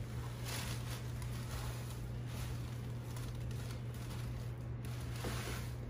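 Rice Krispies cereal pouring from a plastic bag into a measuring cup: a steady, light pattering rustle of the dry grains.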